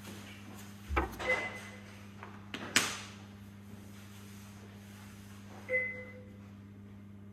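Several sharp clicks and knocks of handling, two of them leaving a brief ringing tone, over a steady low electrical hum.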